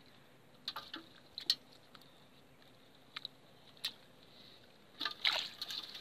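Scattered small splashes and drips of water as small fish are picked out of a wet mesh net and dropped into a metal pot, followed by louder splashing and sloshing about five seconds in.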